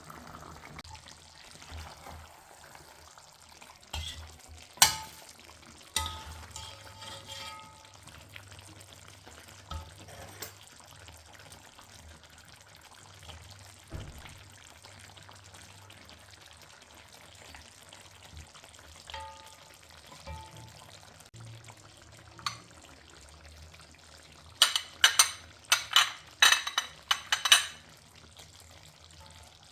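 Metal utensil knocking and scraping against a karahi pan while mutton cooks. Scattered single clinks that ring briefly, then a quick run of sharp clinks near the end.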